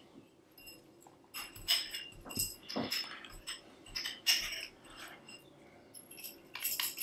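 Aluminium tensegrity tubes clinking and tapping against each other as they are handled, with small metal link fittings clicking against the tubes. These are scattered light metallic clicks, a few with a brief ring.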